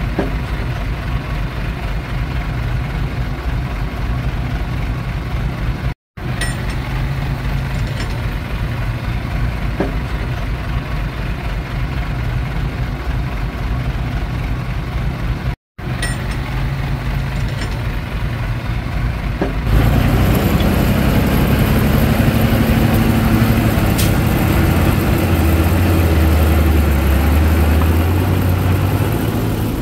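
Heavy diesel earthmoving machinery running steadily, cut by two brief gaps. About two-thirds of the way in it turns louder, with a deep engine note that rises and falls as under load.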